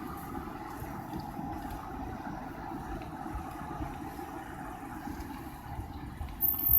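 Car driving slowly, heard from inside the cabin: a steady rumble of engine and tyre noise with no changes.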